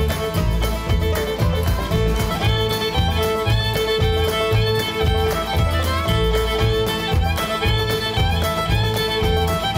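Upbeat bluegrass-style background music with fiddle and guitar over a steady beat.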